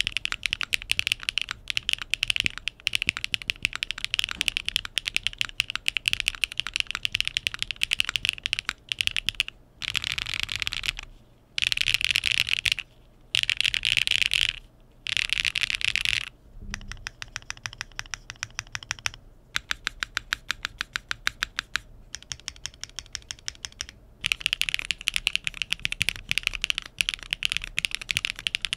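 Fast typing on a Tess65 65% mechanical keyboard with Keygeek Kyubi clacky linear switches and IDK Koala keycaps, PCB gasket-mounted without foam. Clacky keystrokes come in quick runs with short pauses. The build changes partway through, from plateless to a polycarbonate plate, and the sound changes with it.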